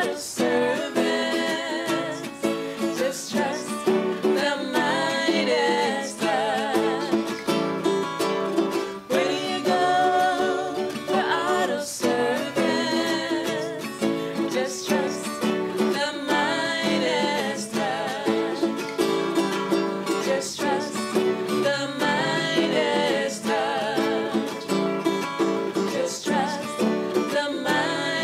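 Acoustic guitar and ukulele strummed together, with a woman singing a melody over them.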